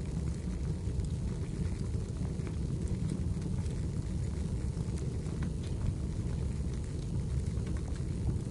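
Wood fire burning in a fireplace: a steady low rumble with scattered sharp crackles and pops of burning firewood.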